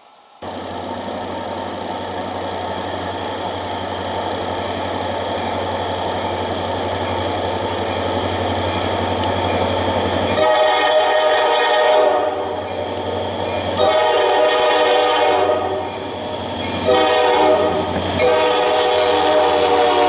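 Diesel freight locomotive approaching, its engine rumble growing slowly louder. About halfway through, its air horn sounds the grade-crossing signal: long, long, short, long, with the last blast still sounding as the train reaches the camera.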